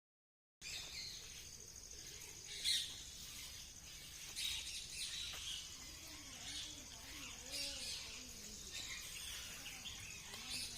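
Birds chirping and calling over a steady high insect trill, with the loudest chirp about three seconds in.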